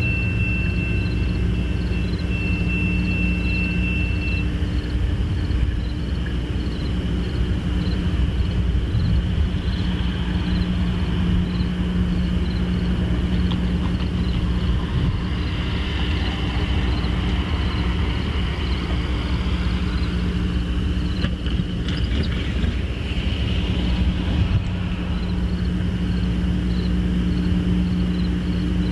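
Diesel-electric locomotive engines rumbling steadily, a low even drone that holds through the whole stretch.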